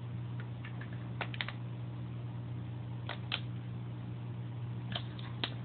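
A steady low hum with a few short, sharp clicks in small clusters: the buttons of a handheld remote control being pressed to steer a mini RC submarine.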